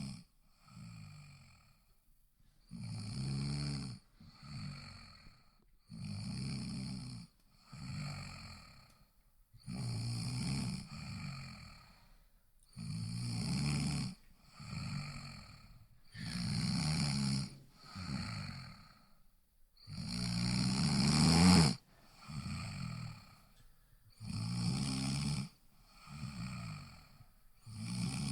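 A person snoring in a steady rhythm: each breath brings a long loud snore followed by a shorter, softer one, about every three to four seconds. About twenty seconds in, one snore swells louder than the rest and cuts off sharply.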